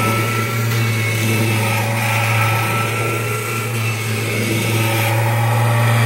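A 1994 Kirby Generation 4 upright vacuum cleaner running steadily as it is pushed over carpet, a constant motor hum with a fainter higher whine. It runs normally; the odd noise it makes only comes at shut-off.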